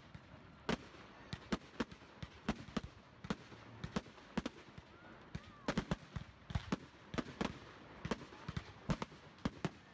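Fireworks going off in quick succession: an irregular run of sharp pops and bangs from aerial shells bursting, about two or three a second, some much louder than others.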